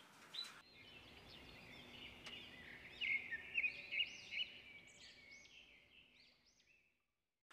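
Small songbird chirping: a rapid string of short, high chirps that grows louder toward the middle and fades out about a second before the end.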